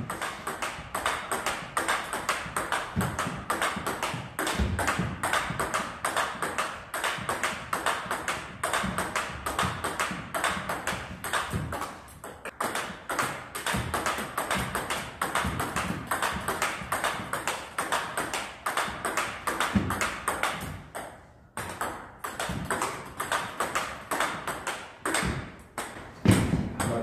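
Table tennis rally: a plastic ball struck back and forth by rubber-faced bats and bouncing on the table in a quick, steady clicking rhythm, with two short breaks about twelve and twenty-one seconds in.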